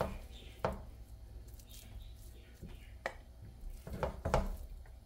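Wooden spatula scooping cooked khichdi from a frying pan onto a ceramic plate, with a few light knocks and scrapes of the spatula against the pan and plate.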